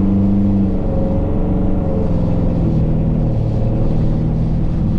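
Ford Gen 3 Coyote 5.0 V8 in a 1955 F100 pulling at light throttle, about 15%. Its note steps down about two and a half seconds in as the 10R80 ten-speed automatic shifts up.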